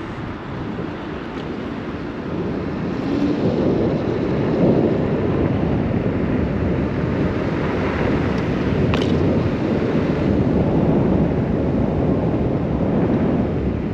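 Wind rushing over the microphone of an electric scooter riding fast, a dense steady rush that grows louder about three seconds in.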